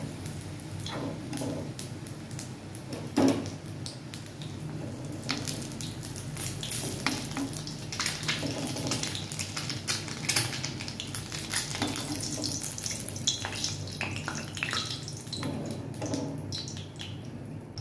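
Boiled eggs crackling and sizzling in hot oil in a metal kadhai, while a steel ladle scrapes and knocks against the pan as the eggs are scooped out. There is a sharper clink about three seconds in, and the crackling thins out near the end.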